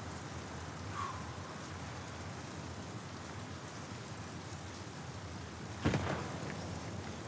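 Steady hiss of outdoor ambience, like rain, with one sharp bang about six seconds in.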